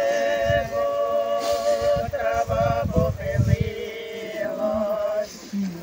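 Unaccompanied Orthodox funeral chant sung at the graveside: several voices hold long, slow notes together, changing pitch only now and then. A low rumble runs under the singing.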